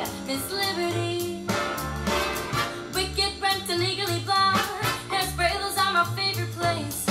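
A swing-jazz recording with a female voice singing over a bass line and band, played back through a home-built two-way loudspeaker and picked up in the room. The speaker has a 14 cm woofer in a sealed box and a dome tweeter crossed over at 2 kHz.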